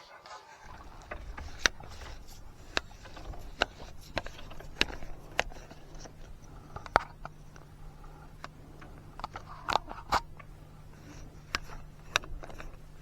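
Irregular sharp clicks and knocks, over a steady low hum that starts about half a second in.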